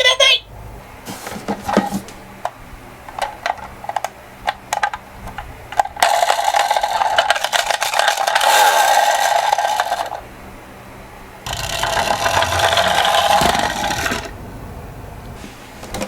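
Miniature toy cars rolling down a slope with a rattling rumble, in two runs of about four and two and a half seconds, after scattered clicks and taps.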